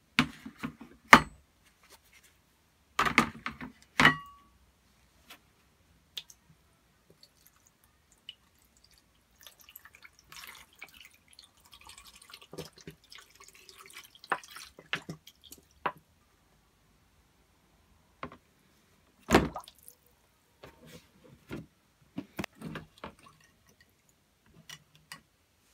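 Steel bolt cutter handles set down into a tray with a few sharp knocks, then liquid poured from a bottle into the tray, trickling and splashing for several seconds. Another hard knock and some lighter clatter follow later.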